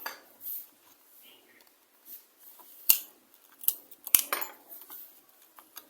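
Small hard clicks and scrapes of tools and plastic phone parts being handled on a workbench, with two sharp clicks about three and four seconds in.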